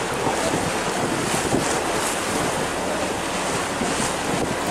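Wind buffeting the microphone over a steady rush of water from a harbour ferry under way.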